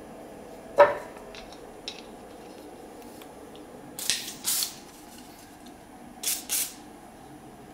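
A sharp click, then a WD-40 aerosol can spraying through its red extension straw fitted with a machined aluminium nozzle: four short hisses in two quick pairs, a couple of seconds apart.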